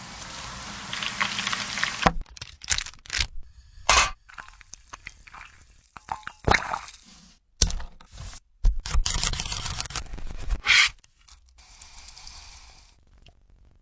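Cooking sounds: about two seconds of steady sizzling, then a run of sharp knocks, scrapes and short sizzling stretches that start and stop abruptly.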